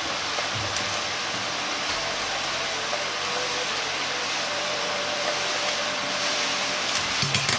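Steady rushing hiss of a commercial kitchen's gas range and ventilation while an empty frying pan heats over a low flame, with a few light clicks near the end.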